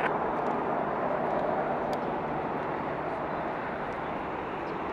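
Gulfstream G650 business jet's twin turbofan engines: a steady jet rush that eases off slightly toward the end.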